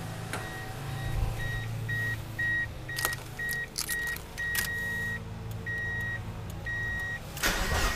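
The car's warning chime beeps repeatedly at one pitch while a key jingles and clicks into the ignition of a supercharged Mazda MX-5 Miata. The chime stops near the end, and the starter begins cranking the engine.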